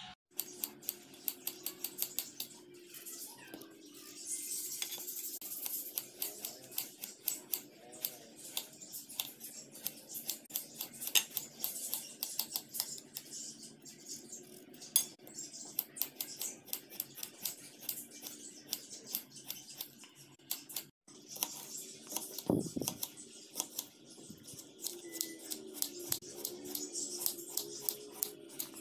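Knife dicing peeled potatoes on a plate: rapid, irregular clicks and taps of the blade against the plate as the potato is cut into small pieces.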